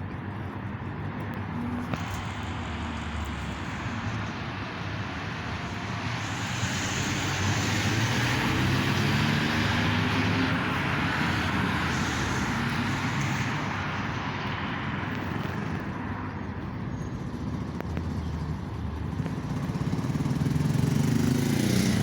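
Road traffic: vehicles driving past, the noise swelling for several seconds and fading, then building again near the end, with a low engine hum underneath.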